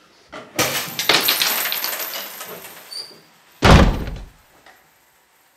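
A door handled with a noisy clatter for a couple of seconds, then slammed shut with a heavy bang about three and a half seconds in.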